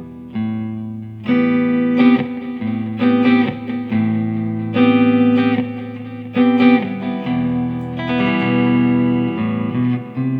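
Electric guitar played through a Bludotone amplifier: a phrase of sustained single notes and chords, with new notes struck every second or so.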